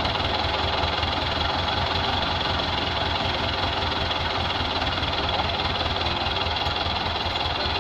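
Diesel engine of a farm tractor hitched to a fully loaded trolley of sacks, running steadily.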